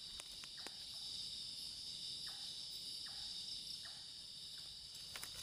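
Steady high-pitched chorus of crickets and other night insects, with a few faint clicks.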